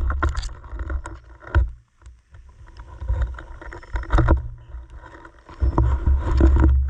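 Water sloshing with a heavy, uneven low rumble and scattered knocks, as when water moves around and against a camera.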